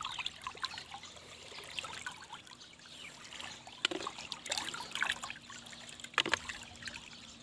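Shallow river water trickling and lapping over a pebble bed while a hand moves through it, with two sharper splashes, about four seconds in and again about six seconds in.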